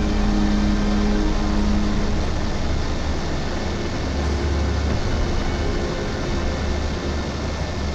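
Steady aircraft engine noise, a constant loud rushing hum with a deep rumble underneath, picked up on board the surveillance aircraft. A few faint held tones come and go beneath it.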